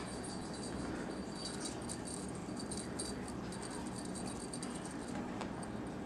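Small jingle bell jingling in quick, irregular shakes, with a high, clear ring.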